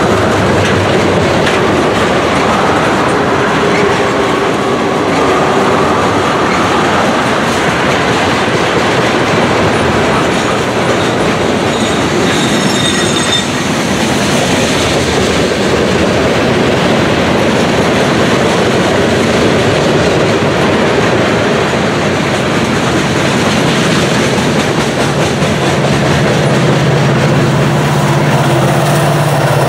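Freight train tank cars rolling past close by: steady wheel and rail noise with clickety-clack over the joints, and a brief high wheel squeal about halfway through. Near the end, the low engine hum of a mid-train Norfolk Southern diesel locomotive comes in as the unit draws level.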